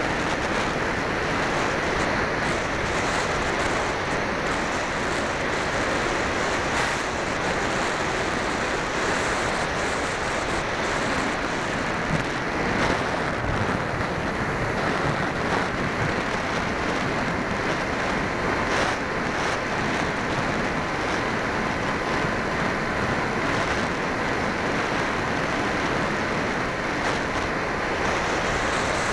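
Steady rushing wind noise on the microphone of a small airborne camera moving at speed, with a faint steady high tone in the second half.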